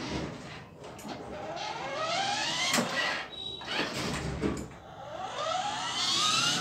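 Electric drive motors and gearboxes of a battery-powered ride-on toy car whining. The whine rises in pitch twice as the car speeds up, with a couple of sharp clicks in between.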